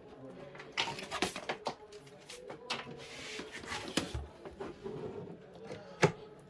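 Scattered clicks and knocks of objects being handled on a workbench, the sharpest knock about six seconds in.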